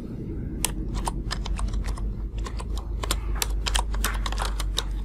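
Typing on a computer keyboard: an irregular run of key clicks as a line of code is entered, over a low steady hum.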